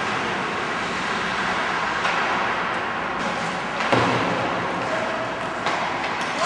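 Ice hockey play on a rink: a steady scraping hiss of skates on the ice, broken by sharp knocks of stick and puck about two seconds in and near the end, with the loudest bang just before four seconds.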